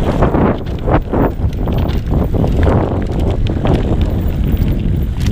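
Mountain bike riding a dirt forest trail: a steady rush of wind on the microphone and tyre rumble, with irregular knocks and rattles from the bike over bumps.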